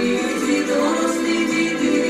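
Voices singing a Ukrainian Christmas carol (koliadka) together, with long held notes.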